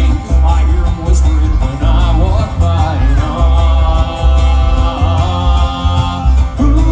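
Live bluegrass band playing: banjo, acoustic guitar, mandolin and upright bass, with the bass keeping a steady pulse under the picked strings.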